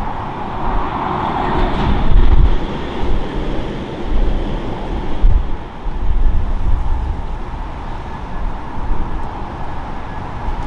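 Jet engines of a Boeing 737 MAX 8, CFM LEAP-1B turbofans, running as the airliner rolls out along the runway after landing: a steady rushing hiss with a faint whine. Strong wind gusts buffet the microphone in heavy low thumps that come and go.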